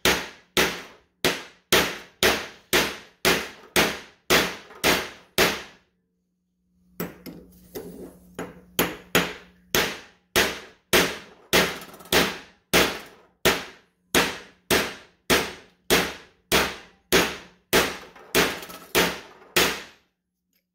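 Steady hammer blows, about two a second, ringing on a metal bar set on the old bearing race, driving a freezer-chilled new bearing race into a front wheel hub. The blows pause for about a second some six seconds in, then carry on until the race is seated.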